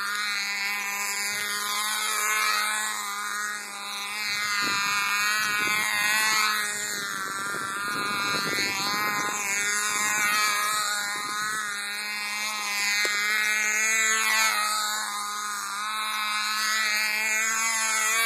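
Cox model airplane's tiny two-stroke engine running in flight: a high, buzzy drone whose pitch and loudness rise and fall about every four seconds as the plane circles.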